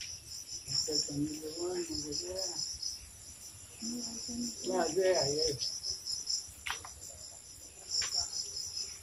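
Insects chirring in a steady, high, pulsing trill that drops out briefly a couple of times. A voice speaks briefly twice underneath, the loudest moments, about a second in and around the middle, with a couple of faint clicks later.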